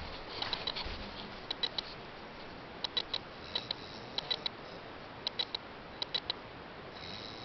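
A sleeping animal's 'snore': faint, sharp, high clicks in quick groups of two or three, about one group a second, with no deep snoring rumble.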